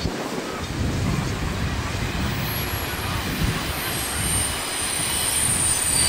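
A steam-hauled train moving slowly past with a steady low rumble. From about halfway, a thin high wheel squeal creeps in and grows louder near the end.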